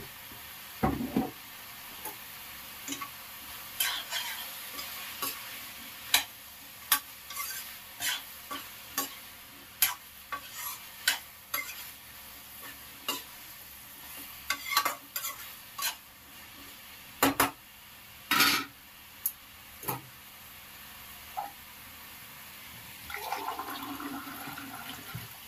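A metal ladle stirring cauliflower masala in a metal kadai, with irregular sharp clinks and scrapes of the ladle against the pan over a low steady frying hiss. Near the end there is a short muffled rustle of cloth against the microphone.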